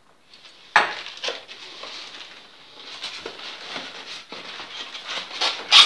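Handling noise of cardboard and plastic packaging: rustling, crackling and small scrapes, with a sharp knock about a second in and a louder crinkle near the end.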